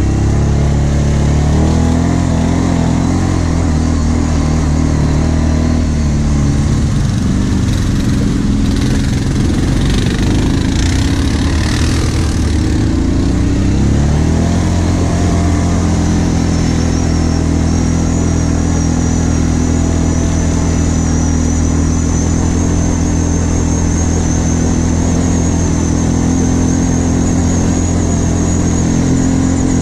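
ATV engine running while the quad is ridden, revs rising and falling through the first half with some rough clatter, then holding a steadier note from about halfway, with a thin high whine alongside.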